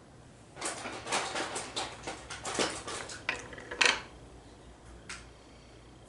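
Small hard objects being handled, clattering and knocking together in a quick run of clicks and rattles. The run starts about half a second in and lasts about three seconds, with its loudest knock near the end. One more knock follows about a second later.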